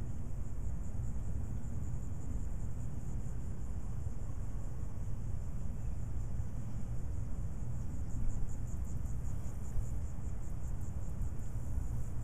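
Insects chirring in a rapid, high, pulsing trill that grows more distinct in the second half, over a steady low rumble.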